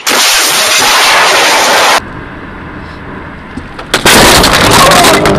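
Dashcam recordings of car collisions: two loud, distorted bursts of crash noise, each about two seconds long, the second full of rapid banging and crunching, with quieter road noise between them.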